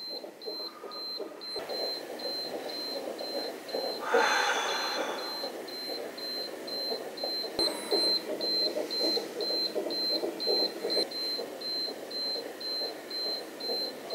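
Infusion pump reminder alarm beeping: a short, high beep repeating evenly two or three times a second. A softer pulsing sound runs underneath, and there is a brief rustle about four seconds in.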